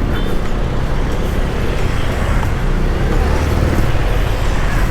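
Benelli Panarea 125 scooter under way in traffic: steady engine, road and traffic noise with a heavy low rumble throughout.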